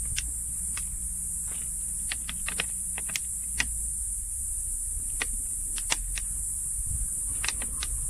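Small twig fire crackling, with scattered sharp clicks as plastic water bottles are handled and pierced with a hot metal skewer. A steady high-pitched insect drone runs underneath.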